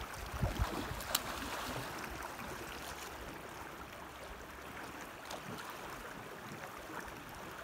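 Kenai River current flowing and lapping, a steady rush of water. A couple of low knocks and a sharp click stand out about a second in.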